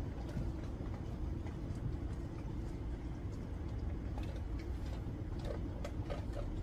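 Steady low background rumble with faint scattered clicks.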